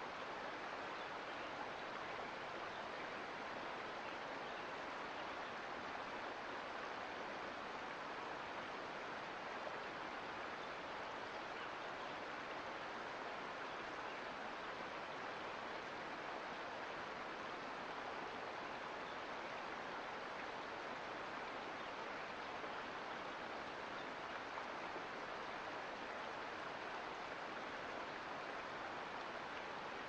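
Sierra Nevada mountain creek flowing: a steady, even rush of water with no breaks or changes.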